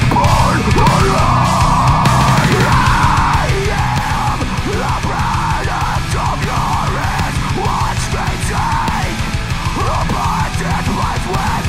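Heavy metal soundtrack music with fast, dense drumming and distorted electric guitars.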